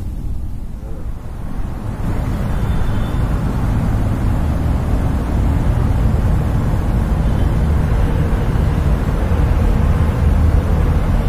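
Steady low outdoor rumble, growing fuller about two seconds in.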